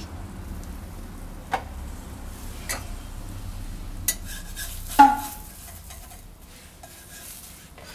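Metal knocks and scrapes: a stainless steel lid lifted off a thick iron griddle plate, then a steel spatula knocking and sliding on the griddle as a fried egg is lifted, with one loud ringing clank about five seconds in.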